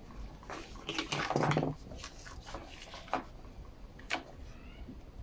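Hands fitting a rubber fuel line onto a string trimmer's carburetor nozzle: scattered light clicks and taps of plastic parts, with one louder, longer handling sound about a second in.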